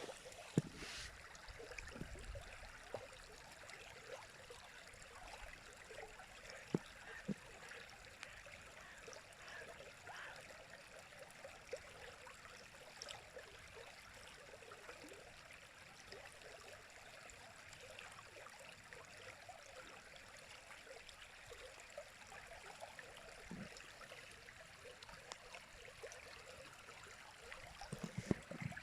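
River water running: a steady rush broken now and then by brief, louder splashes and gurgles, a few of them bunched together near the end.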